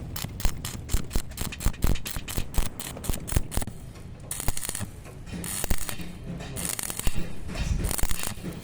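Metalwork on a motorbike chassis: a run of sharp irregular clicks and taps, then from about halfway four short crackling hisses, each about half a second long, like brief electric arc welding tacks.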